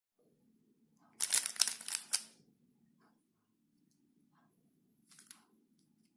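A 3x3 Rubik's cube being turned quickly by hand, its plastic layers clicking in a fast run of turns about a second in and a short burst near the end.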